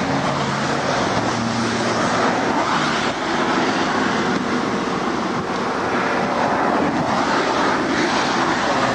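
Steady noise of highway traffic going past at speed close by, cars and trucks in the near lanes.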